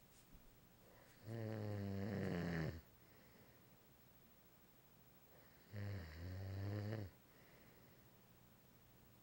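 A man snoring: two long, low, buzzing snores about four and a half seconds apart, each lasting a second or more, with quiet breathing between.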